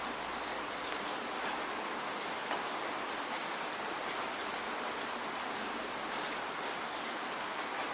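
Steady rainfall, an even hiss of rain with many individual drops ticking sharply on a surface.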